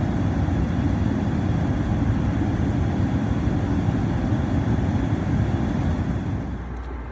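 Comfortmaker gas furnace running with its burners lit: a steady low rushing noise of flame and fans. The burners are throwing a lot of yellow flame and rolling out, which the owner puts down to a sooted-up heat exchanger. Near the end the noise drops away, leaving a lower hum.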